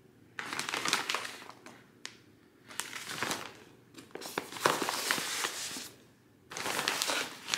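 Filled reusable shopping bags crinkling and rustling as a hand handles and turns them, in four bursts of a second or two each.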